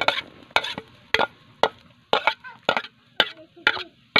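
A metal blade tapping sharply against a plastic chopping board to knock moringa leaves into a pot. The taps come in a string, often in pairs, roughly every half second.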